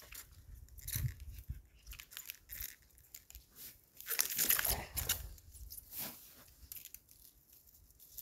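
Rustling, crunching and tearing noises of a stiff cow hide being handled and tied down with rope on snow, in irregular scrapes with the longest, loudest burst about four seconds in.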